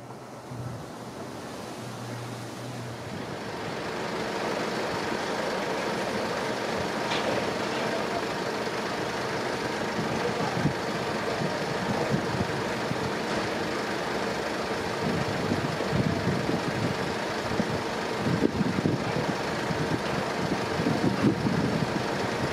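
Steady road traffic noise that swells over the first few seconds, with irregular low rumbles in the later part.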